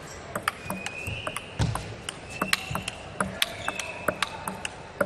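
Table tennis rally: the ball clicking sharply off the rackets and the table in quick, irregular succession, with a few short high squeaks.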